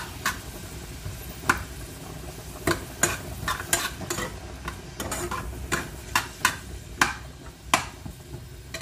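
A metal spoon stirring frozen mixed vegetables in a small pot of hot coconut oil, knocking and scraping against the pot at irregular intervals. Under it runs a steady sizzle as the ice on the frozen vegetables cooks off in the oil.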